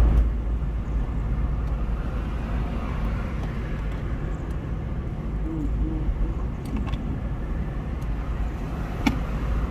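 Road and engine rumble heard from inside a car's cabin while cruising at highway speed: a steady low noise, with a short sharp click near the end.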